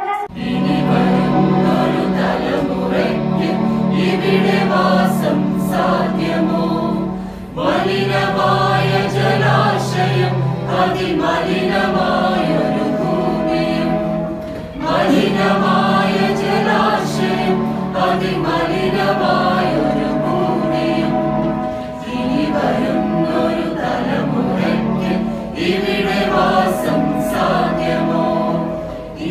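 A group of women singing a Malayalam song together in unison into microphones, over steady sustained low notes. The song goes in phrases of about seven seconds with short breaks between them.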